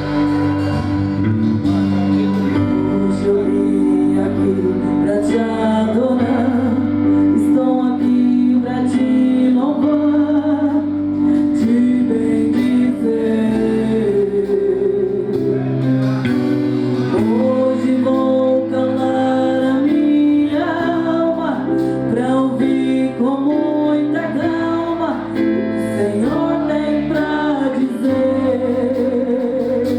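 Live Portuguese gospel worship song: singing over a guitar-led church band, continuous and steady in level.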